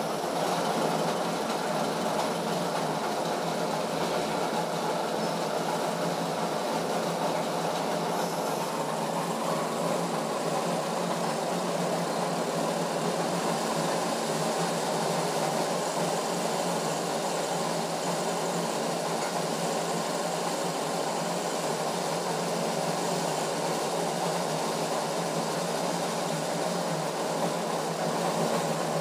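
Diesel injection pump test bench running steadily, driving an Isuzu 4JB1 distributor-type injection pump during calibration: an even, unbroken mechanical running noise.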